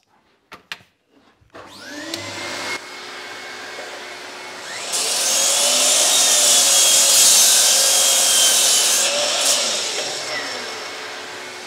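Bosch sliding mitre saw: the motor spins up with a rising whine, the blade cuts loudly through a pine 2x4 for about four seconds, then the motor winds down as the arm is lifted.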